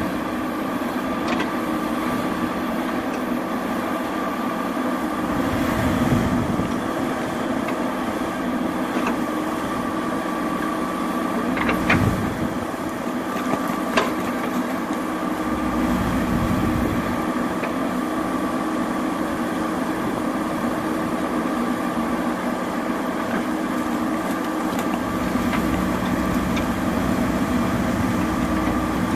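JCB 3DX Super backhoe loader's diesel engine running steadily while the machine works, with two sharp knocks about two seconds apart near the middle.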